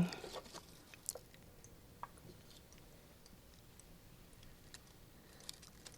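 A few faint, short clicks and taps, scattered about a second apart and then sparse, over a low quiet background.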